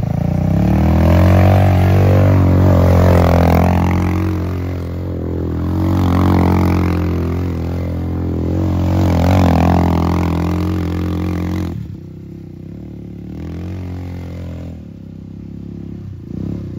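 Modified ATV engine revving up and down repeatedly as it is ridden hard on dirt, then dropping suddenly to a quieter, lower running about twelve seconds in.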